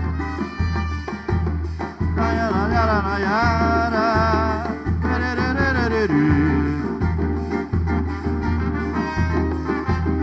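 Live bumba-meu-boi band in the zabumba style playing an instrumental break. A low drum and bass beat falls about once a second, and a lead melody with wavering pitch enters about two seconds in and slides down around six seconds.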